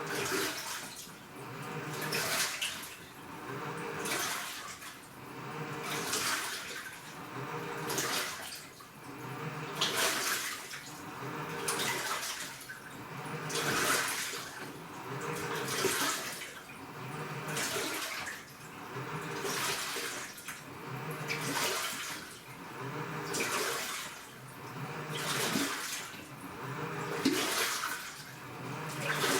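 AQUA washing machine with a direct-drive inverter motor agitating its load in water: the water churns in swells about every two seconds as the motor turns one way then the other, with a low motor hum under each swell.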